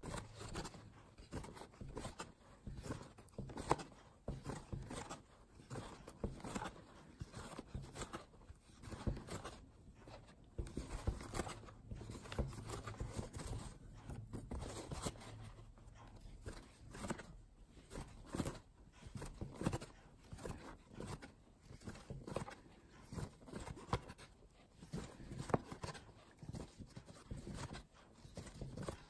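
Irregular rustling and scratching of yarn and a metal crochet hook as hands work single crochet stitches into a crocheted piece, with the fabric handled close by.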